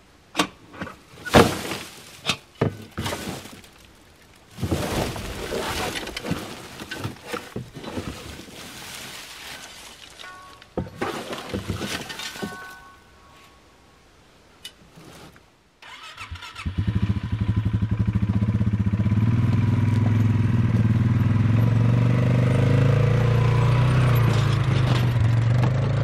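Cut brush and branches crashing and rustling as a plastic dump cart is tipped and emptied onto a brush pile, with a few sharp knocks from the cart early on. About sixteen seconds in, the Polaris Sportsman ATV engine starts and runs steadily.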